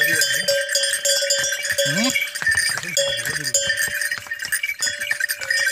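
Bells on riding horses jingling without a break as they walk, a steady ringing mixed with quick metallic clinks, with brief snatches of a man's voice.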